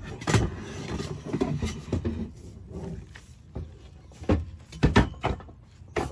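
Thin-walled aluminium Flagpole Buddy pole sections being handled: rough scraping and rubbing, with sharp hollow knocks, several in quick succession about four to five seconds in.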